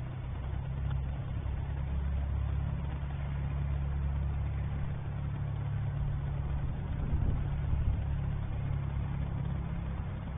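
Aircraft engine noise: a steady low drone that holds even, with no clear rise or fall.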